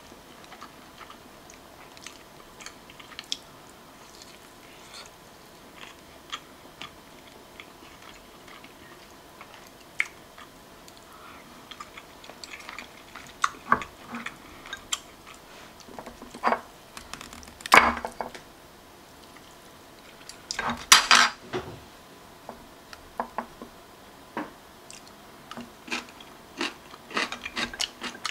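Metal chopsticks and a spoon clicking against ceramic plates and bowls while eating: scattered light clinks, with a louder clatter about 18 seconds in and again about 21 seconds in.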